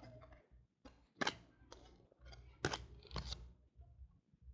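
Football trading cards being flipped through by hand: a handful of quick flicks and slides of card against card, about four in all.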